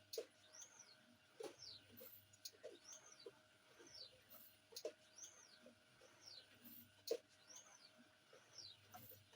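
Automatic cup screen-printing machine cycling: a faint high squeak that rises and falls about every two seconds, with sharp clicks in between.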